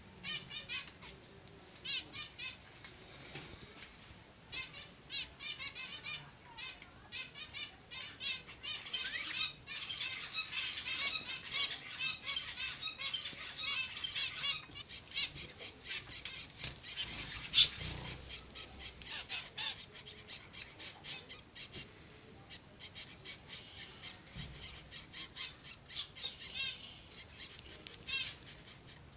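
Zebra finch chicks begging while being fed: rapid series of short, high calls coming in bursts, turning into a dense, fast run of calls about halfway through.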